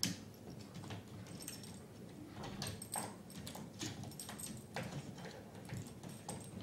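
A small dog climbing a lattice baby gate: irregular clicks, knocks and rattles of its claws and paws scrabbling on the gate's mesh.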